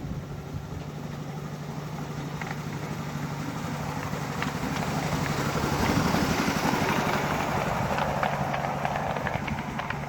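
Petrol engine of a 7¼-inch gauge petrol-hydraulic miniature locomotive running steadily, growing louder to a peak about six seconds in and then easing off as it passes, with a run of sharp clicks while it is closest.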